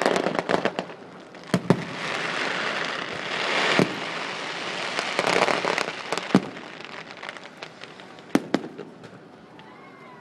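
Fireworks display: a rapid run of sharp bangs from bursting shells, with swells of crackling between them, thinning to a few scattered bangs toward the end.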